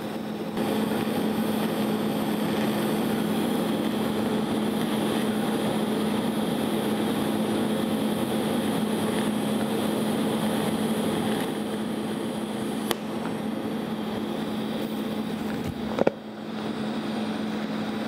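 TIG welding arc buzzing steadily with a constant hum while brazing a crack in cast iron with bronze filler rod. It eases a little about twelve seconds in, then cuts out with a click near the end, leaving the hiss of the shielding gas post-flow.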